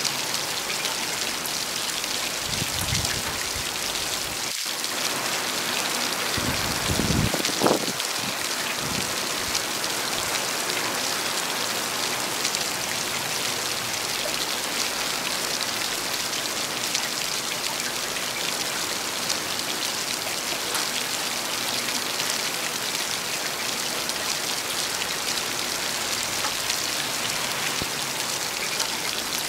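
Steady rain falling, an even hiss of countless drops, with a brief low rumble about seven seconds in.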